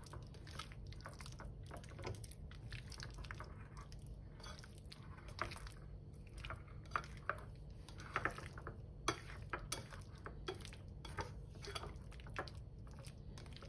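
Chopsticks stirring raw chicken pieces in a thick, wet egg marinade in a ceramic bowl: soft wet squishing with light, irregular clicks of the chopsticks against the bowl.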